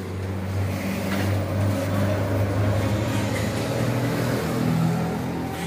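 A steady low engine-like hum with a deep, even drone that swells slightly twice and eases off near the end.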